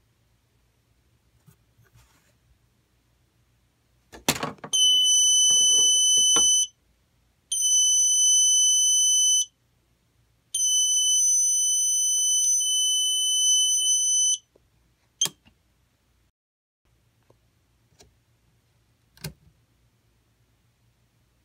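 Loud, steady, high-pitched electronic alarm tone, sounding three times: about two seconds, then two seconds, then four seconds. It comes after a knock, and a couple of single clicks follow.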